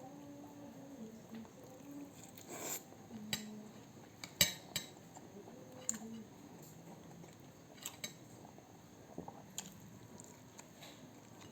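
Cutlery clinking against a plate while eating: a scatter of sharp clinks, the loudest about four and a half seconds in.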